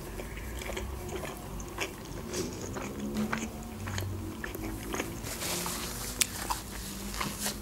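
Close-miked chewing of a khinkali dumpling, with scattered short mouth clicks.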